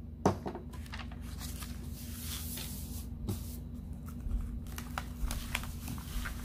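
Protective plastic cover sheet being laid back down and smoothed by hand over a diamond painting canvas: crinkling and rustling, with a sharp tap about a quarter second in and a few light knocks later.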